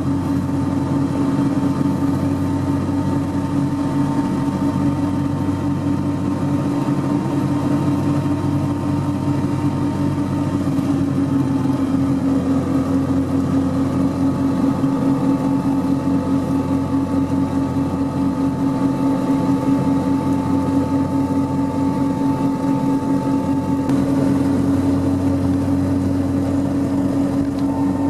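Off-road jeep driving at steady highway speed, heard inside the cab: a constant drone of engine and tyre noise with a steady hum.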